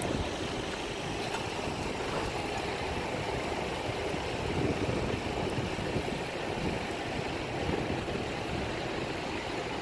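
Steady rushing noise of wind buffeting the microphone, with no distinct event standing out.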